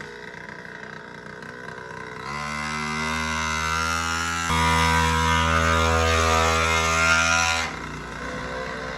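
Pocket bike's small Chinese engine running low, then opened up about two seconds in and held at a steady pitch, stepping higher about halfway through, before dropping back to a low run near the end.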